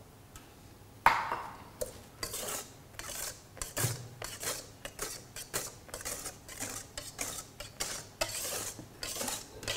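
A hand wire whisk beats oil into whipped eggs and sugar in a stainless steel bowl. Rhythmic scraping and clinking strokes against the bowl, a few a second, start about a second in.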